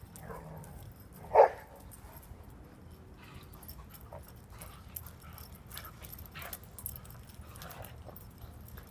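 A dog barks once, a short loud bark about a second and a half in, with faint scattered clicks and rustles around it.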